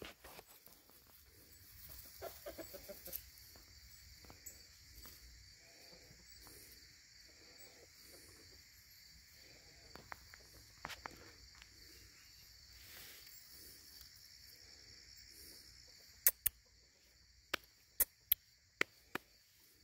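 Chickens clucking in short calls about once a second, over a steady drone of insects. About six sharp clicks come near the end and are the loudest sounds.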